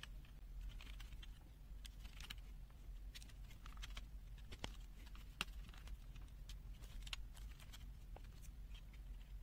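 Faint, irregular clicks and short scrapes of a small plastic multimeter case being opened and handled, over a low steady hum.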